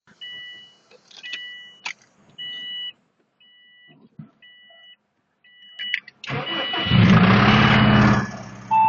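The car's electronic warning chime beeps six times, about once a second, with a couple of clicks. Then the starter cranks briefly and the Subaru EJ20 flat-four catches on a cold start, flares up in revs and settles to a fast idle; this is the engine whose owner hears a knock from cylinder 4 when cold.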